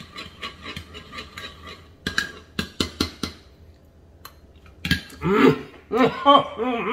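A metal spoon stirring a thick ketchup-and-steak-sauce glaze in a ceramic bowl: quick clinks and scrapes against the bowl, then a few sharp taps about two to three seconds in. In the last two seconds there are wordless voice sounds, louder than the stirring.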